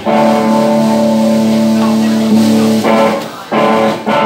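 Live band playing on electric guitars and bass: loud held chords with short stops about three and a half seconds in and near the end.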